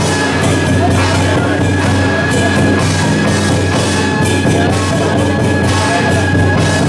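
Loud, continuous music with drums and repeated cymbal-like crashes over a steady held tone.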